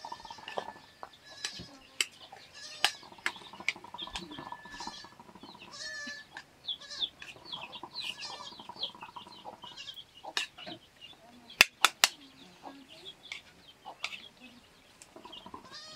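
Birds calling over and over in short, high chirps, with three sharp knocks in quick succession a little after the middle, the loudest sounds.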